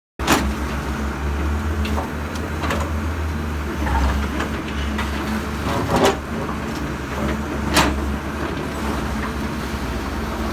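Heavy machine engine running steadily with a low hum, broken by several sharp knocks, the strongest about six and eight seconds in.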